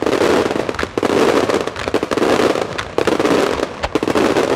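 Fireworks display firing low-level effects: a continuous hiss and crackle of fountains and mines, broken by sharp bangs about once a second and a quick cluster of bangs near the end.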